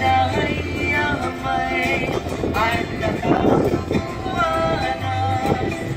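Hawaiian chant sung for hula, with music under the voices; the notes are long-held and waver in pitch.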